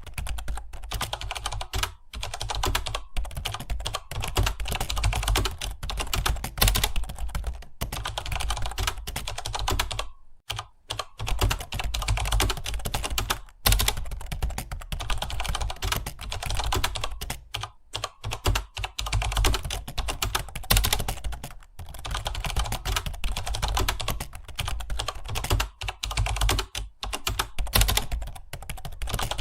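Fast, continuous typing on computer keyboards, a dense clatter of key clicks that pauses briefly a few times.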